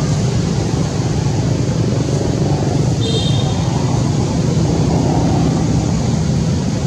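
A steady low rumbling noise with no breaks, and a brief high chirp about three seconds in.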